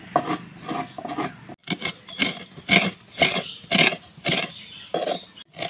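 Coconut halves being scraped against a kurani, the serrated blade of a traditional Bengali coconut scraper: a rhythmic rasping, about two or three strokes a second, with a brief break about a second and a half in and louder strokes after it.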